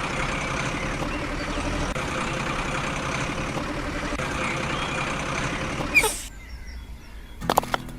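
A small machine's motor running steadily with an even throb, then cutting off about six seconds in.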